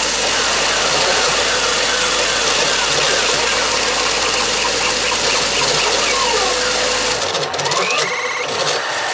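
Pachinko machine sound effect: a loud, steady rumbling noise thick with many short chirping glides, which PANN hears as engine-like. About seven seconds in the low rumble drops away suddenly and the sound thins out.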